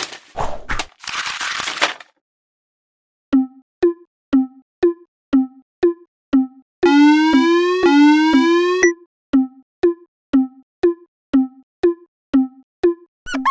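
Cartoon railroad crossing alarm sounds: a burst of hissing noise for about two seconds, then, after a short silence, a crossing bell striking about twice a second. Around the middle, a tone that rises in pitch twice is laid over the strikes.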